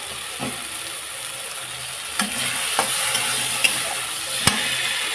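Onion-tomato masala sizzling in oil in a kadhai while a spatula stirs it, knocking sharply against the pan about five times, most loudly near the end. The masala is frying to the point where the oil starts to separate.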